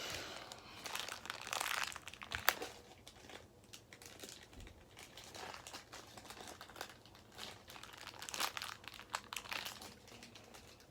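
Plastic toy packaging crinkling and rustling as it is handled by hand, in uneven spells, louder near the start and again around two-thirds of the way through, with one sharp click about two and a half seconds in.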